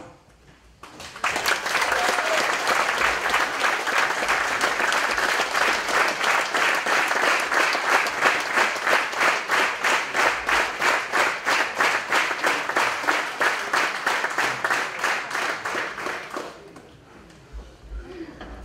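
Audience applauding after about a second, falling into clapping in unison at about three to four claps a second, then dying away about sixteen seconds in.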